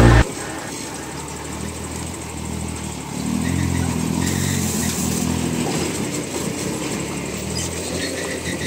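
Engine of a loaded REO 6x6 cargo truck pulling slowly through mud, rising in pitch and loudness about three seconds in, then running steadily.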